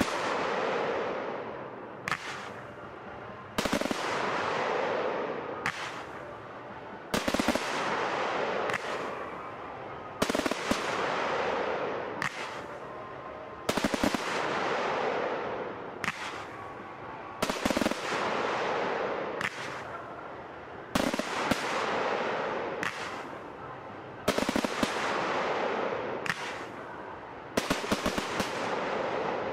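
Fireworks display: aerial shells bursting in quick clusters of sharp bangs about every three and a half seconds, nine salvos in all, each followed by a tail of noise that dies away.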